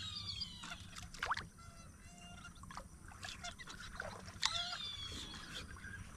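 A few knocks and splashes at a fishing kayak as a hooked fish is brought in, over quiet water sounds. Birds call in descending whistles near the start and again about four and a half seconds in.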